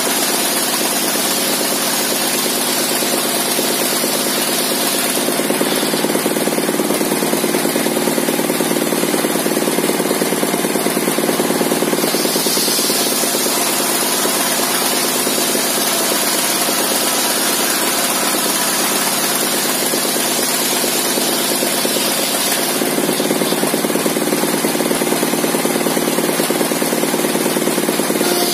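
Engine-driven table circular saw, its blade modified for ripping fibrous timber, running steadily while a long softwood board is ripped lengthwise. The sound grows slightly louder in two stretches as the cut goes on.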